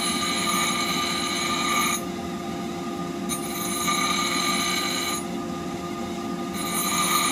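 Bench grinder running steadily while a steel woodturning-tool blade is ground on its wheel, a high ringing grind. The grind stops twice as the blade is lifted off, about two seconds in and again about five seconds in, then starts again.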